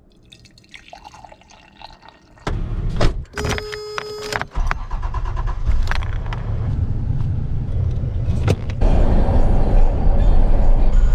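Keys jangling, then a 1993 Toyota Pickup's engine starting and running steadily. A brief steady tone lasts about a second before the engine settles, and the running gets louder near the end.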